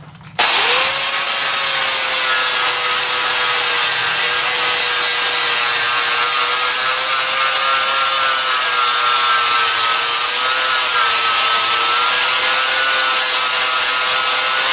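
Hitachi angle grinder with a flap disc starting up about half a second in and then grinding rust and scale off a thick steel plate: a steady high whine over a loud abrasive hiss, its pitch wavering slightly as the disc is pressed to the metal.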